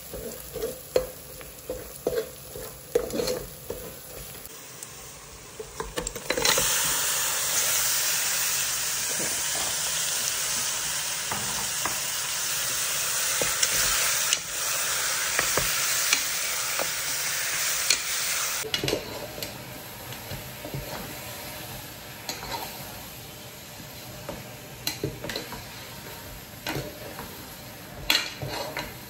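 Metal spatula scraping and tapping in an aluminium pressure cooker as an onion and ginger-garlic masala fries. About six seconds in, a loud sizzle starts as raw mutton goes into the hot oil; it lasts about twelve seconds and stops suddenly, and the stirring scrapes and taps go on.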